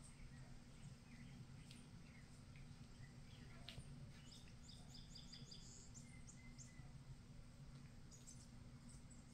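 Near silence: a steady low hum of room tone with faint high chirps, a quick run of them near the middle.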